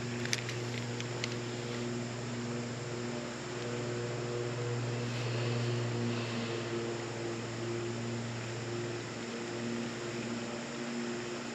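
Spinning reel being cranked slowly on a lure retrieve, its gears giving a steady low hum with overtones that fades and returns. The creek's water hisses underneath, and there are a few light clicks about a second in.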